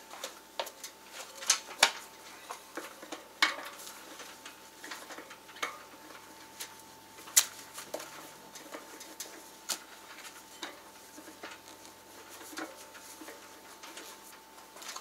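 Irregular metallic clicks and knocks as the lever of a Baja No Pinch tire tool is worked, forcing a dirt bike tire's bead over the spoked rim a couple of inches at a time. A faint steady tone sits underneath.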